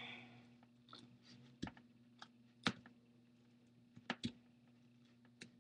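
Faint, irregular crackling clicks from the adhesive under an iPad 3's glass front panel letting go as it is pried up with an opening tool. There are about seven, with a close pair around four seconds in, over a faint steady hum. They are crunching noises that are usually just the adhesive coming up, not the glass cracking.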